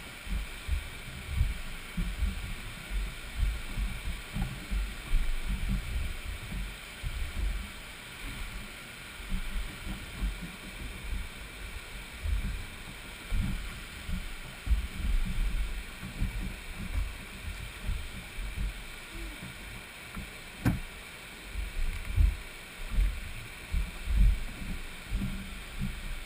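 River water slapping and gurgling against a jet ski's hull in choppy current, with irregular low thumps of wind and water buffeting the microphone.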